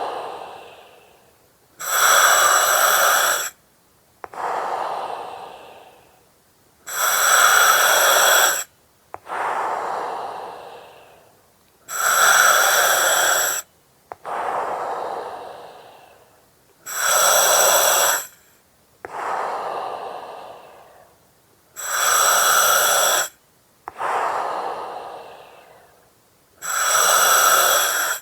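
Slow, regular breathing through an oxygen mask, about one breath every five seconds. Each cycle has a loud, even hiss of about a second and a half from the mask's regulator, then a softer breath that fades out, with a brief silence between. The hiss comes six times.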